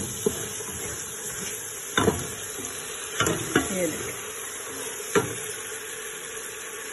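Chicken and tomato-spice masala sizzling as it fries in a pot, stirred with a wooden spoon that knocks and scrapes against the pot several times. This is the bhuna stage of a chicken karahi, with the masala being fried down.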